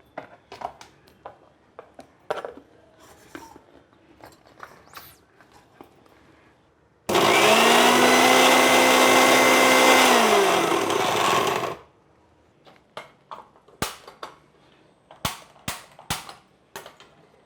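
Electric mixer grinder running for about five seconds, grinding fresh mint and coriander leaves; its motor note drops as it is switched off. Scattered clicks and knocks of the jar and lid come before and after.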